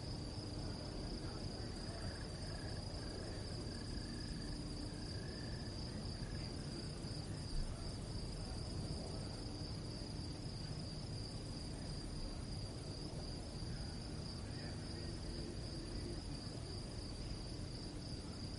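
Steady chorus of insects, a continuous high-pitched trilling hum, over a low background rumble, with one brief knock about seven and a half seconds in.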